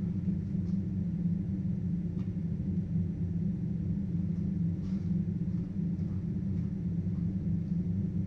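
A low, steady rumbling drone, with a few faint clicks over it.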